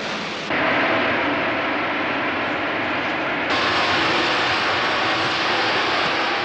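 Paris Métro train running at speed through a tunnel, a steady, loud rushing noise that changes character abruptly about half a second in and again after three and a half seconds.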